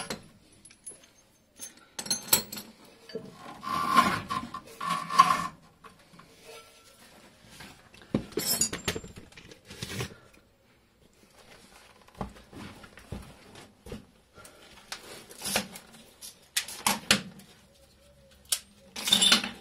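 Irregular metallic clanks, knocks and scrapes of heavy steel car parts and tools being handled, in bursts a second or two long with short quiet gaps, loudest about four to five seconds in.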